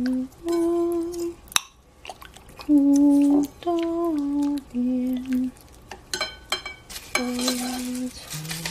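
A person humming a slow tune in held notes that step up and down in pitch, over light clicks of wooden chopsticks against a glass bowl as meat is turned in its marinade. A clatter of utensils comes in near the end.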